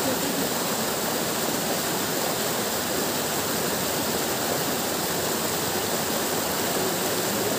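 Steady rushing of flowing water, an even, unbroken hiss.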